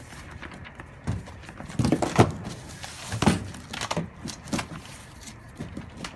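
Cardboard boxes being handled: a boxed item slides against a cardboard carton with rustling, and several dull thuds of cardboard knocking, the loudest about two seconds in.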